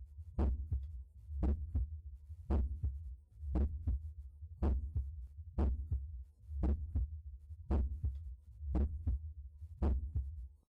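Heart sounds auscultated over the aortic valve area: a regular heartbeat of about one beat a second, each beat a quick pair of thuds, over a steady low hum.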